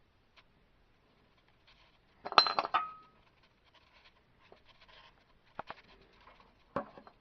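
Metal hand tools and bolts clinking against metal. A loud clatter about two seconds in leaves a short ringing note, and single sharp clicks follow near the end.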